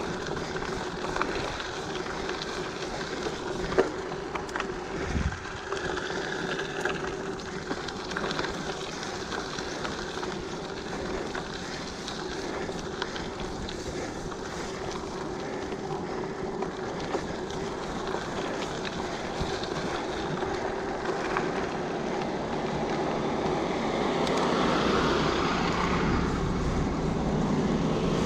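Giant Fathom mountain bike rolling along a dirt path: steady tyre noise with wind on the camera mic. A couple of sharp knocks come about four and five seconds in, and the noise grows louder over the last few seconds.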